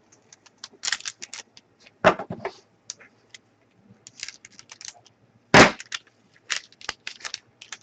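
Trading cards being handled and set down on a table: a run of sharp clicks and snaps, with two louder knocks about two and five and a half seconds in.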